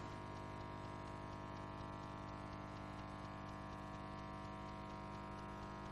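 Faint, steady electrical mains hum with many overtones, and nothing else heard.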